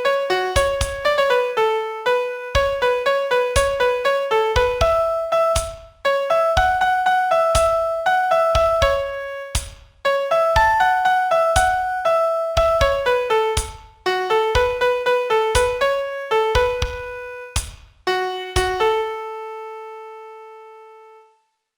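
Solo piano playing a song melody in quick notes over bass notes, closing on a held final chord that fades out to silence near the end.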